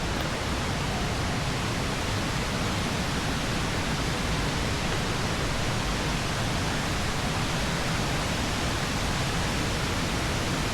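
Steady, unbroken roar of a large waterfall.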